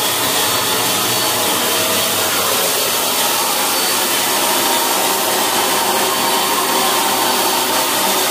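Buildskill BPS1100 650 W HVLP paint sprayer running steadily, its turbine blowing air through the hand-held spray gun as it sprays paint onto a wall. It is an even blower noise with a faint high tone.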